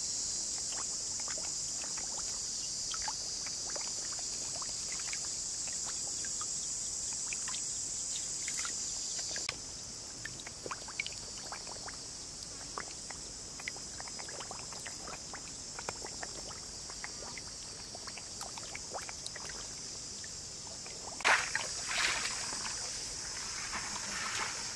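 Catfish thrashing in a shallow muddy pool: scattered small splashes and slaps of water, with a louder splash about 21 seconds in. A steady high insect buzz runs underneath.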